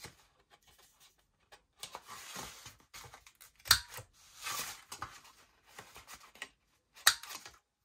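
Handheld corner-rounder punch snapping through cardstock twice, two sharp clicks about three and a half seconds apart, with card rustling and sliding as the corner is set in the punch.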